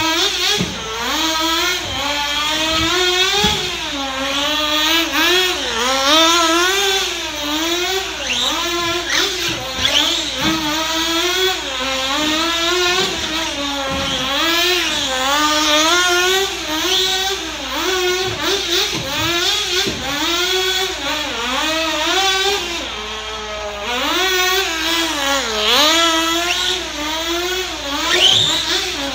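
The small nitro engine of a 1/16-scale Sportwerks Chaos RC buggy running hard with a high-pitched whine. Its pitch rises and falls every second or two as the throttle is opened and closed through the turns.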